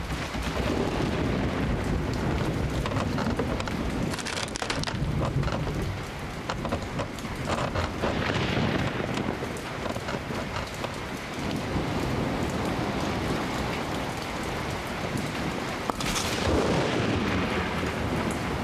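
Steady heavy rain with rumbling thunder, with a louder crash about four seconds in and another near the end.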